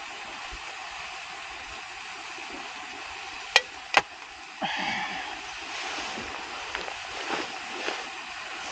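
A beer can set down on a small camp table: two sharp knocks about half a second apart. Then the crinkle and rustle of a plastic food packet being torn open for a few seconds, over a steady background hiss.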